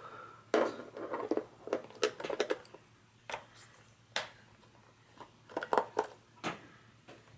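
Irregular small clicks and scrapes of hands handling a plastic computer keyboard and the small screws just taken out of its back case.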